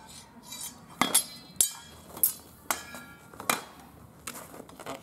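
Steel sword blades and bucklers clashing in a fast sword-and-buckler exchange: a quick series of about seven sharp metallic clangs, several ringing briefly, spread over the first four seconds.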